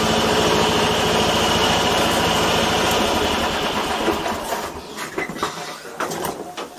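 Riding lawn mower's small engine running steadily with a rapid firing pulse, fading away about four seconds in. Scattered knocks and clatters follow.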